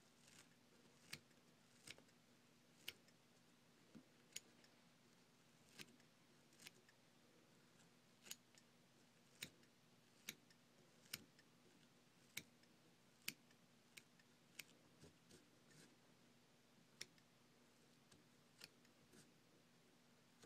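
Small scissors snipping spun deer hair while a mouse fly is trimmed to shape: sharp, quiet snips at irregular intervals, roughly one a second, over a faint steady hum.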